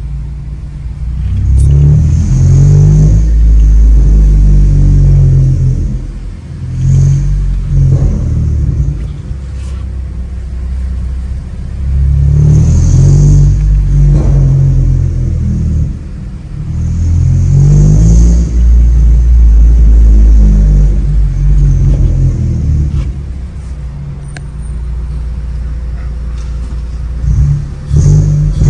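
9th-generation Honda Civic Si's 2.4-litre four-cylinder running through a full 3-inch downpipe and exhaust, heard from inside the cabin. The revs rise and fall in about five long, loud surges with lower idling between them.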